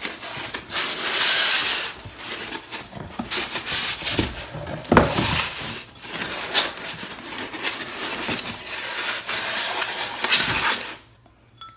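White ceramic planters being unpacked from styrofoam packing: styrofoam rubbing and scraping, with clicks and knocks of the ceramic pots being handled. The handling stops about a second before the end.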